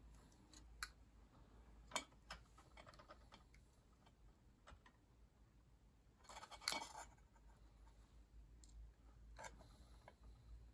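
Faint scattered clicks and scrapes of small hand tools and wire connectors being worked on appliance wiring, with a short cluster of clicking and rustling about six to seven seconds in.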